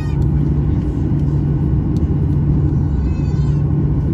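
Steady low rumble and constant hum of a Boeing 737-900ER's passenger cabin, the engines and airflow heard from inside the cabin.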